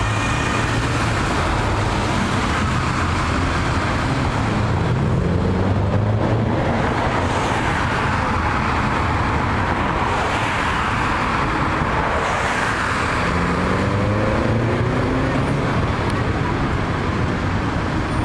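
City road traffic: a steady rumble of car engines and tyres on the road, with one engine rising in pitch as it speeds up about two-thirds through.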